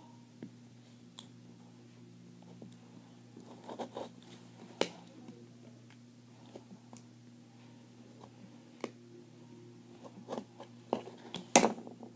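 Scattered clicks and taps of small parts being handled and worked by hand, the sharpest about five seconds in and a cluster near the end, over a steady low hum.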